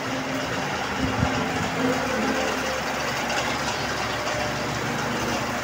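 A steady mechanical hum with a broad even noise over it, with a faint low tone in the first couple of seconds.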